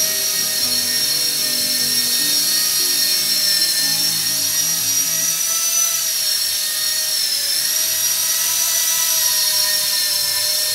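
Small 4-channel RC airplane's electric motor and propeller whining steadily in flight, the pitch wavering slightly and dipping briefly about seven seconds in.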